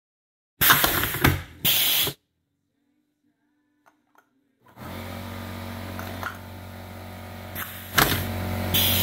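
Pneumatic can crusher firing: a sharp burst as the air cylinder drives its ram into an aluminum beer can, then a hiss of exhausting air as it retracts. After a short quiet gap a steady machine hum comes in, and near the end the crusher fires again with another burst and hiss.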